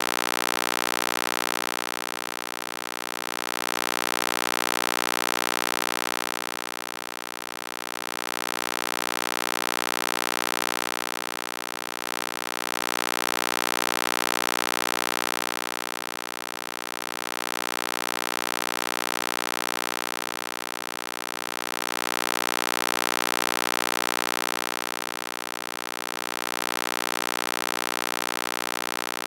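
Synthesized EMDR stimulation tone: a steady drone of many layered pitches that swells and fades about every four and a half seconds.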